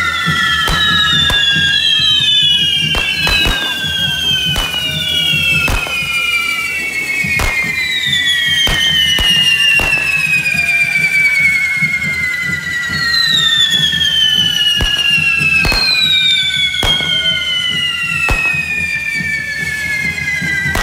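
Correfoc fireworks: several carretilles (spinning spark-fountain fireworks carried on the devils' forks) burning at once, each giving a whistle that slowly falls in pitch over several seconds. A dozen or more sharp bangs go off throughout.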